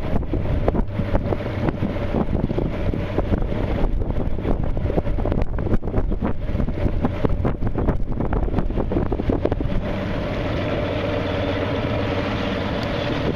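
Wind buffeting the microphone on a moving motorboat, over the steady hum of the boat's engine and water rushing along the hull. The buffeting eases about ten seconds in.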